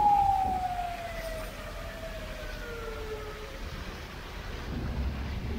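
A vehicle siren wailing: a tone that slides slowly down in pitch and fades over the first few seconds, over the low rumble of a car driving on a wet road.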